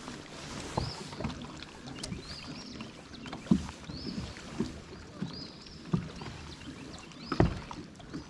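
Small waves lapping and slapping against the hull of a boat sitting on the water, in irregular knocks over a steady low wash, the strongest slaps about three and a half, six and seven and a half seconds in. A faint high chirp repeats about once a second behind it.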